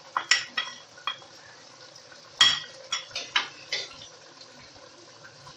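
A spoon knocking and scraping against a cooking pot as chopped onion is tipped in and stirred, a string of short clinks with the loudest about two and a half seconds in.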